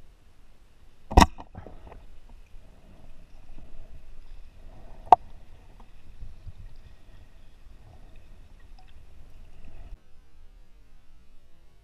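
Pneumatic speargun firing underwater: one sharp bang about a second in, the loudest sound, with a short rattle after it, then a second sharp click a few seconds later. A low rumble of water on the camera housing runs underneath.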